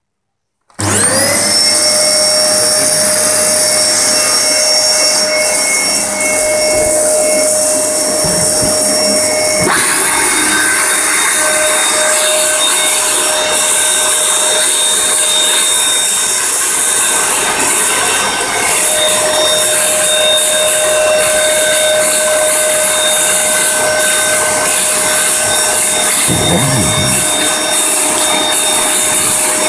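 Electrolux canister vacuum cleaner switched on. Its motor spins up about a second in and runs steadily with a whine. About ten seconds in the sound changes abruptly, as more hiss and a second whine join it.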